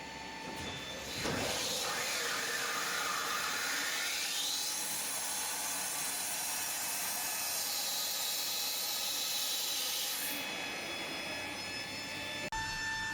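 Boeing 737NG hydraulic system running during a landing gear swing: a rushing hiss with a whine that rises over a few seconds, holds steady, then drops back, ending in an abrupt cut.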